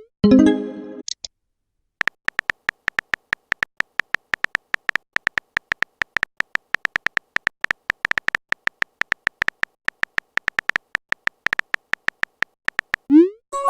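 Rapid, irregular clicks of a phone's on-screen keyboard typing a message. A short pitched message chime sounds just after the start, and a quick rising swoop comes near the end.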